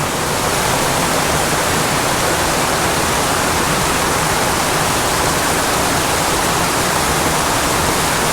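Water of a small mountain creek rushing steadily, a loud even hiss with no breaks.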